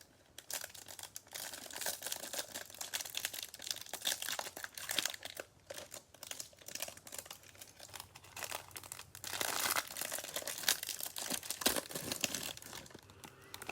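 Plastic packaging crinkling and tearing, with irregular crackles throughout, as a trading-card hanger box is opened and its cards are unwrapped.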